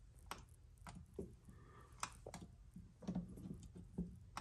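A few faint, scattered clicks and knocks of objects being handled, over a low steady hum.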